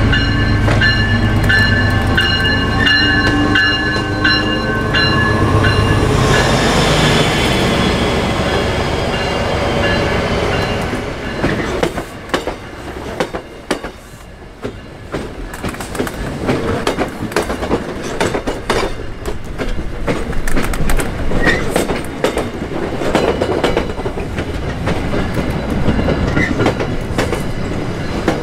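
Diesel commuter train passing close by: the locomotive's engine rumbles with its bell ringing in even strokes for the first few seconds, and the sound drops in pitch as it goes by. Then the coaches follow, wheels clicking over the rail joints, louder again near the end.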